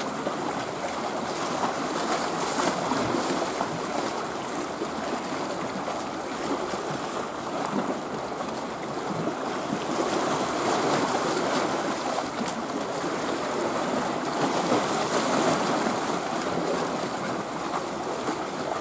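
Small waves washing and lapping at the shoreline: a steady rushing wash of water that swells and eases every few seconds.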